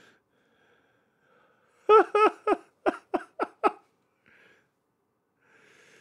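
A man laughing: a run of about seven short "ha"s beginning about two seconds in, each weaker than the last, dying away within two seconds.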